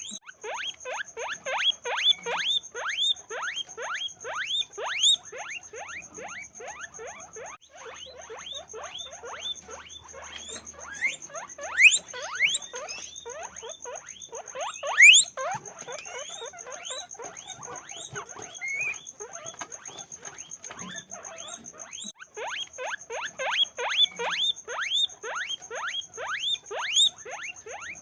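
Many guinea pigs squeaking together: a dense run of short falling squeaks, several a second, with two louder, shriller squeals near the middle.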